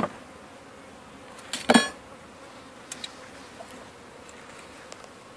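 Honeybees buzzing over an open hive, with one sharp knock about a second and a half in and a lighter click around three seconds.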